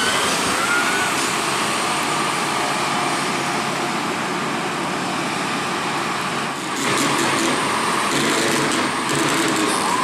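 Large hydraulic excavators' diesel engines running under load, a steady mechanical drone with a faint high whine over it; the sound dips briefly and shifts about two-thirds of the way through.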